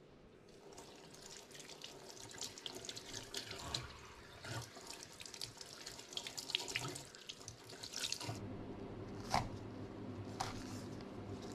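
Tap water running and splashing over a bunch of scallions being rinsed in a sink. After about eight seconds the water stops, and a knife strikes a wooden cutting board twice as scallions are sliced, over a steady low hum.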